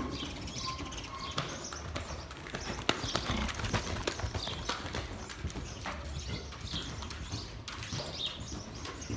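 Hoofbeats of a horse cantering on soft arena footing, loudest about three seconds in as the horse passes close by. Faint bird chirps can be heard over them.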